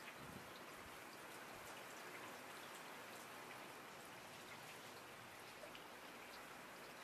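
Near silence: a faint steady hiss of room tone, with a few soft ticks from handling the phone box.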